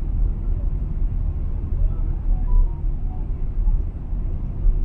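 Cabin noise inside a Boeing 777-300ER while taxiing: a steady low rumble of the idling engines and the airframe rolling over the taxiway.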